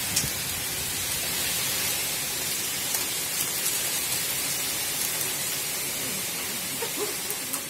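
Heavy storm downpour pouring steadily, a dense even hiss of rain with a few sharp ticks of drops or hailstones striking close by; it starts to fade near the end.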